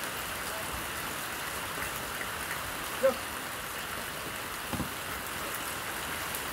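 Steady rain, an even hiss, with one short sharp sound about three seconds in.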